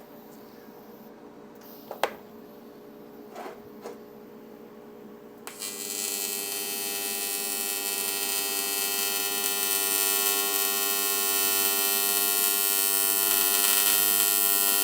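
AC TIG welding arc on quarter-inch aluminum, shielded with a 65/35 helium-argon mix. After a few light clicks, the arc strikes about five seconds in and becomes a steady buzz that grows gradually louder as the foot pedal is pressed down toward 120 amps.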